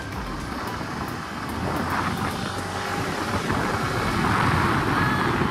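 Motor scooter under way on a road: engine and tyre noise mixed with wind rushing over the microphone, growing louder about two seconds in.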